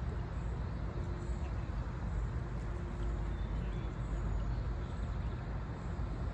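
Steady low rumble of outdoor background noise, without distinct splashes or calls.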